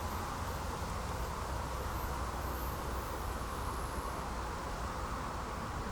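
Steady low rumble and hiss of a freight train still some distance off, heard in the open.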